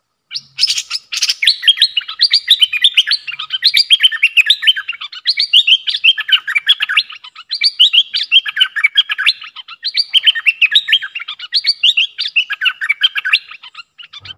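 A bulbul singing a long, fast run of short chirping notes, a decoy song used to lure wild bulbuls.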